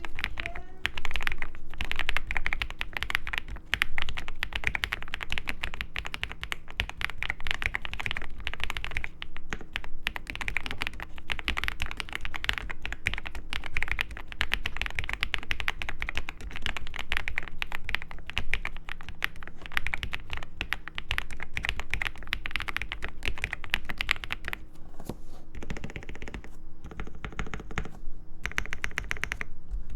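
Fast, continuous typing on a JOJO.STUDIO M75 mechanical keyboard, a dense run of key clacks with a couple of short pauses near the end, over a faint steady hum.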